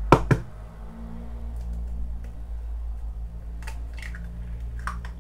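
Two sharp clicks of dishes or utensils knocked together on a kitchen counter. After them a steady low hum runs under a few faint taps.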